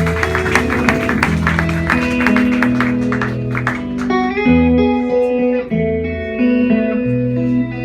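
Live band playing an instrumental passage led by guitar. It is busy and full of sharp strokes for about the first four seconds, then thins out to held single notes.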